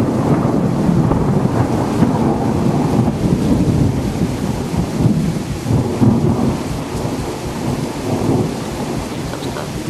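A loud, steady low rumbling noise with no distinct events.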